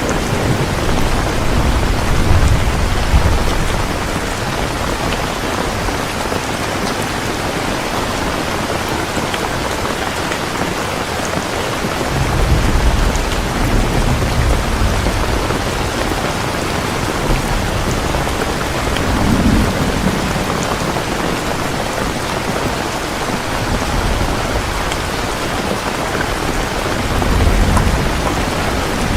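Steady rain falling, an even hiss, with low rumbles of thunder swelling up several times.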